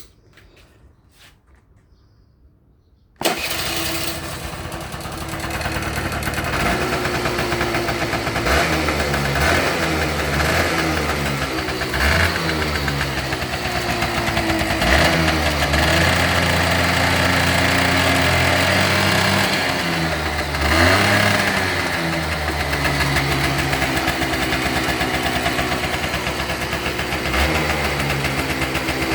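Honda Tact AF51 scooter's 50cc two-stroke engine starting suddenly about three seconds in, then idling with several throttle blips that rise and fall in pitch. It revs up freely with no abnormal noise.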